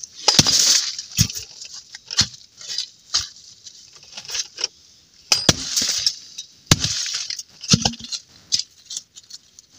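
Split firewood pieces being set down and knocking against each other on a plastic tarp, with crinkling tarp rustles in between: an irregular run of knocks and clicks.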